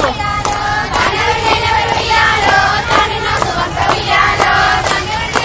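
Girls singing a Bathukamma folk song together, with rhythmic hand claps about twice a second and the murmur of a crowd.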